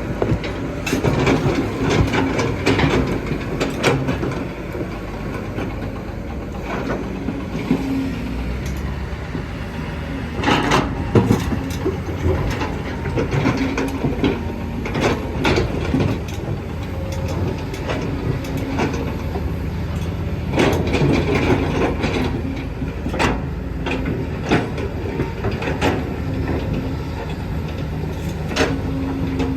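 Kobelco excavator working: its diesel engine runs steadily while sharp clanks and knocks of the bucket and rock come every second or two, some in quick clusters.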